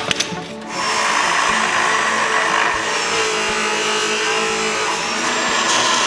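Angle grinder cutting rusty steel under a truck's axle, starting up about a second in and then running steadily. A couple of knocks come just before it starts.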